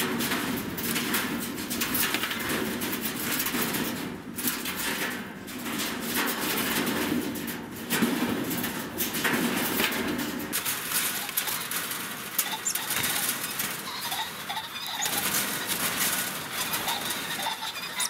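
Caged game-farm pheasants scuffling and flapping their wings against wire cages, with a few short calls in the second half.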